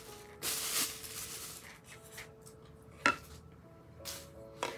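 Wooden boards of a flat-pack guitar stand being handled: a short rubbing rustle about half a second in, a sharp knock about three seconds in, and a few light clicks near the end.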